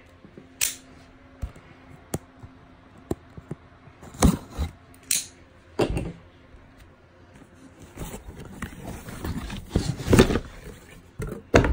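Cardboard box being handled and opened: scattered sharp knocks and clicks of the flaps and lid, then a busier stretch of cardboard scraping and rustling in the last few seconds.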